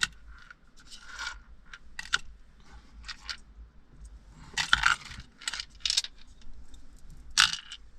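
Hard plastic car interior trim parts being handled and fitted: a string of irregular clicks, rattles and scrapes, loudest about five seconds in and again near the end.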